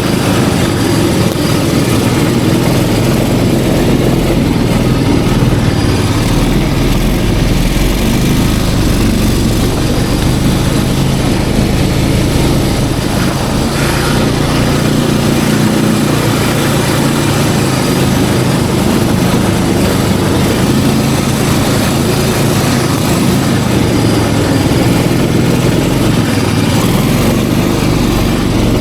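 Snowmobile engine running steadily under way, loud and close, its drone holding an even pitch and level throughout.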